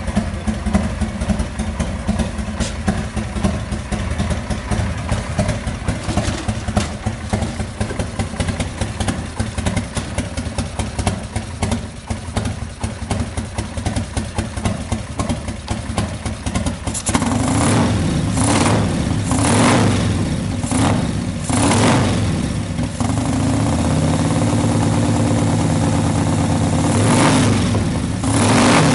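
Revtech 1700 V-twin engine in a Harley-Davidson FXRS Springer idling, then, a little past halfway, revved in several short throttle blips and held at higher revs for a few seconds.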